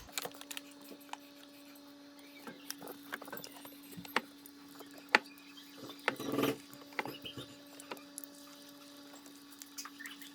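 Light clicks and taps of kitchen utensils against a masa pan, with one louder knock about five seconds in and a brief scrape a little later, over a steady low hum.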